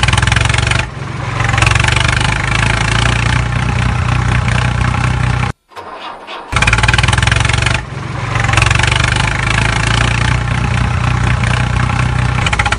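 Tractor engine running with a fast, steady beat. It drops away briefly about a second in and again near eight seconds, each time picking back up, and cuts out for about a second midway.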